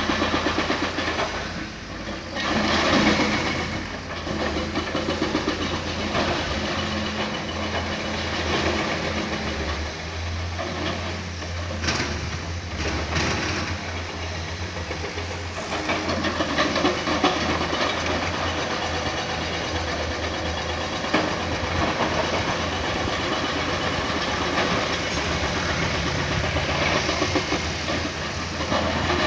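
Hydraulic excavator's diesel engine running steadily while it digs rock, with broad scraping noise and a few sharp knocks about twelve seconds in.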